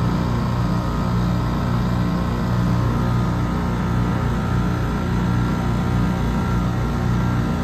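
Copeland scroll compressor in an air-conditioning condenser unit running steadily, a low electrical hum with fainter higher tones over an even rushing noise.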